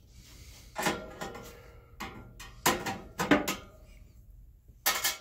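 Handling clatter of metal parts and tools: a series of about six knocks, clinks and short rattles, the loudest a little past halfway.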